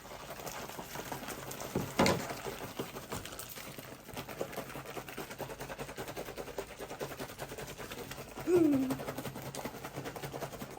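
Rapid rattling and crinkling of a plastic MRE beverage pouch being shaken to mix drink powder into water, with a sharp knock about two seconds in.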